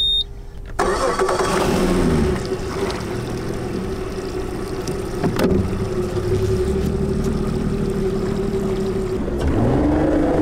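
Suzuki DF250 V6 four-stroke outboard running at idle with a steady low rumble and a faint whine. About a second before the end the throttle opens and its note rises as the bass boat starts to accelerate.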